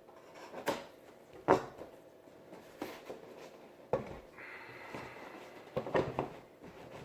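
Objects being handled and set down: half a dozen sharp knocks and clatters, with a brief scraping rustle a little past the middle.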